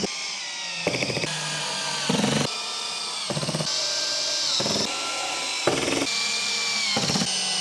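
Cordless drill-driver driving small screws into the metal drawer runners. The motor whirs, its pitch dropping now and then, with short clicking bursts about once a second.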